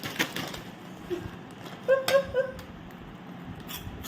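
Scattered crackles and clicks from a crisp-packet and crunchy snack being worked by mouth. About two seconds in there is a short muffled three-note hum from a girl, mixed with a sharp crackle.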